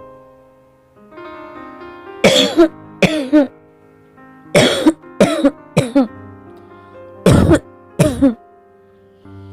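A woman coughing hard in three fits, two coughs, then three, then two, over soft piano music: the persistent cough of someone who has been coughing for years.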